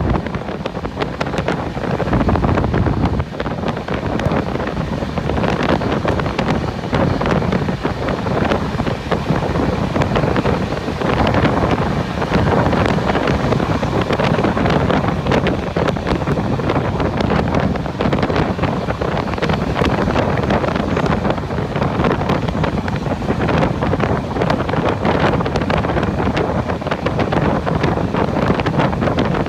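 Wind buffeting the microphone over the steady running noise of a moving train: a loud, unbroken noise, heaviest in the low end, flecked with small clicks.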